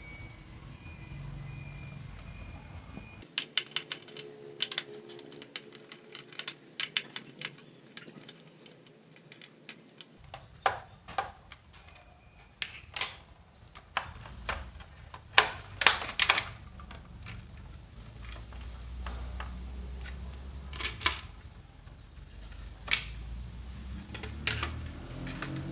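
Irregular sharp clicks and taps of small hard plastic and metal parts being handled while an old transistor radio is worked on. They come sparse at first and grow louder and more frequent about ten seconds in.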